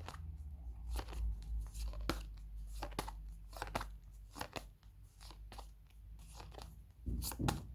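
Flashcards being flipped one after another by hand: a run of short flicks and taps, about one or two a second, with a louder cluster near the end.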